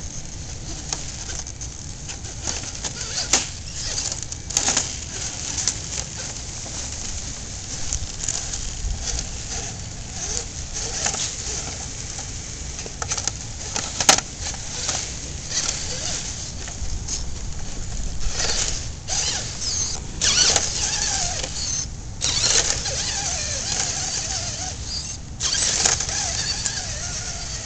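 Radio-controlled rock crawler climbing over boulders: its small electric drive whirs in short spurts while the tyres and chassis scrape, click and knock against the rock, with one sharp knock about halfway through.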